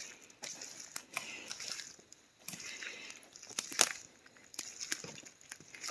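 Footsteps crunching through dry leaves and brushy undergrowth in uneven bursts, with one sharper crack a little before the four-second mark.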